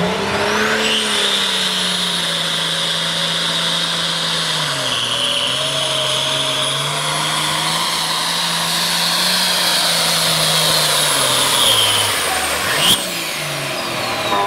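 Turbocharged diesel engine of an International pulling tractor at full power hauling the weight sled, with a high turbo whine over the engine note; the revs dip about five seconds in and climb back. Near the end a sharp crack, then the whine falls away as the engine winds down.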